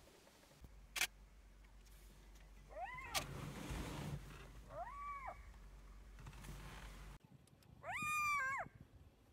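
Black-backed jackal calling: three wailing yells that rise and then fall in pitch, about 3, 5 and 8 seconds in, the last the loudest. A sharp click comes about a second in.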